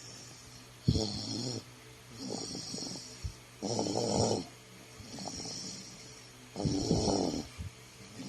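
A sleeping toddler snoring heavily, a rasping snore on each breath, about one every second and a half.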